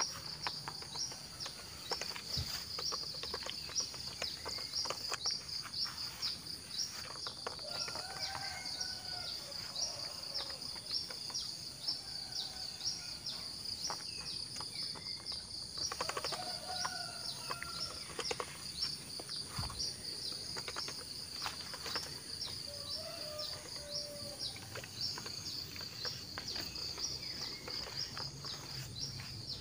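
Insects trilling steadily in a high, rapidly pulsing chorus, with birds calling a few times: about eight seconds in, around sixteen seconds and near twenty-three seconds. A few faint short clicks are heard now and then.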